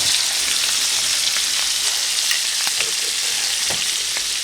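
Food frying in hot oil in a pan: a steady sizzle with scattered sharp pops of spitting oil.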